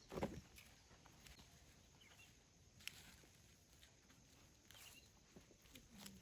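Near silence with a single thump just after the start, then a few faint clicks and short high chirps.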